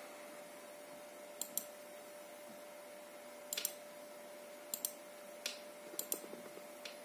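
Sharp clicks from the computer controls of a video playback, about six times and mostly in quick pairs, over a steady faint electrical tone.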